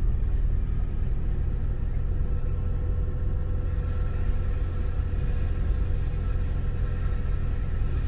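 Car driving slowly, heard from inside the cabin: a steady low rumble of engine and road noise, with a faint steady whine above it.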